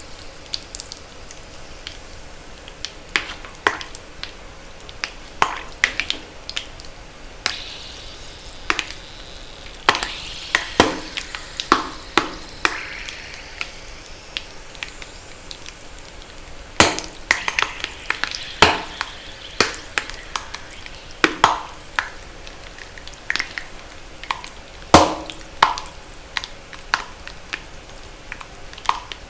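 Reformed magnesium carbonate gym chalk popping and crackling with water. Irregular sharp pops come every second or so, some much louder than others, over a faint hiss.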